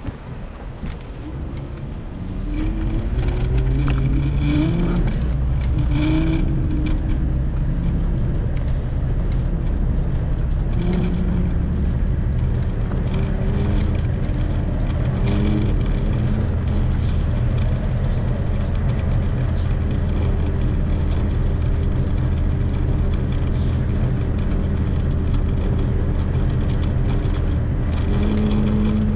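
A vehicle engine pulling away and speeding up, its pitch rising and dropping several times in the first few seconds, then running more steadily, over a heavy low rumble.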